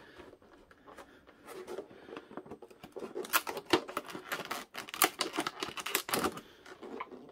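Kitchen shears cutting through a hard clear plastic clamshell package: irregular crisp snips and cracks of the stiff plastic. Faint at first, then coming thick and sharp from about three seconds in.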